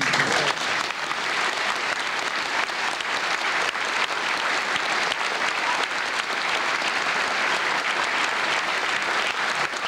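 Concert audience applauding, breaking out all at once and holding as steady, dense clapping.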